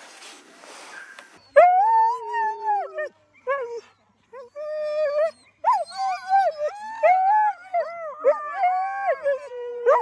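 Sled-dog huskies howling. About a second and a half in, one long howl starts; from the middle on, several dogs howl together in overlapping, wavering notes. The dogs are worked up to set off again.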